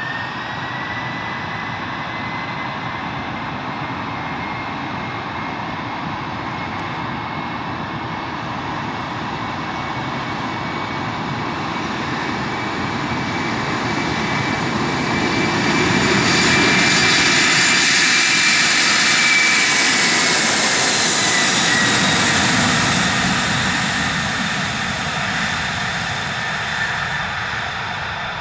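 Boeing 767-300ER's twin jet engines at takeoff power: a fan whine rises in pitch in the first second, then holds steady over the jet noise. The noise builds to its loudest over the second half as the airliner rolls past on a rain-soaked runway, then fades as it moves away.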